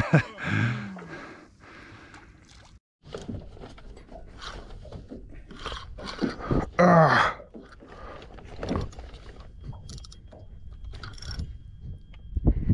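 Scattered clicks, knocks and scrapes of a fishing rod and spinning reel being handled while jigging, with a short voiced exclamation about seven seconds in.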